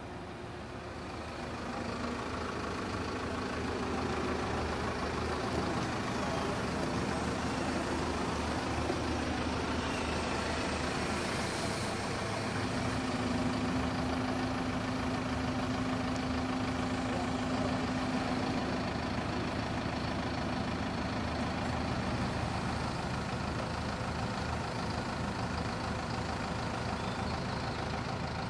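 Grove mobile crane's diesel engine running steadily under load while lowering a heavy locomotive frame, getting louder about two seconds in. A steady higher note holds for several seconds midway.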